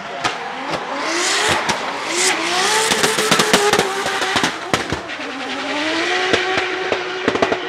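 Drift car engine revving up and down, with many sharp exhaust pops and bangs and a rushing tire squeal as the car slides.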